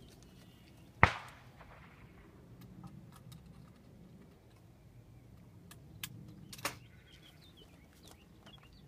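A single shotgun shot about a second in, a sharp crack that dies away over about half a second. About five seconds later come two smaller sharp clicks as the gun is broken open.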